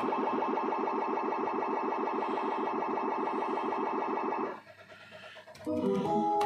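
Cirsa Piratas del Caribe slot machine's electronic count-up sound: a rapid, even run of repeated beeps as the credit meter tallies up, which stops about four and a half seconds in. A short electronic jingle from the machine starts near the end.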